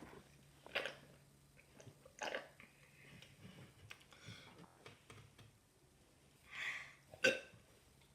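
A boy's weak burp attempt after drinking: a few short, faint breathy sounds and small clicks. The longest is a breathy rasp about six and a half seconds in, followed by a sharp click.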